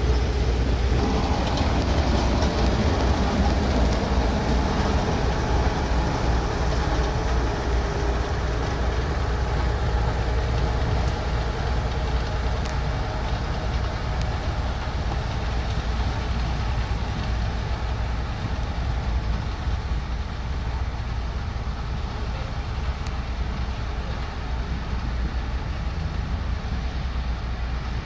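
Diesel engine of a heavy road-construction machine running steadily under work, easing slightly quieter over the second half.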